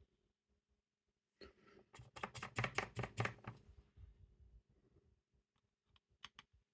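A quick run of light clicks and taps for about three seconds, then two or three more clicks near the end: small tools and parts being handled during hand soldering.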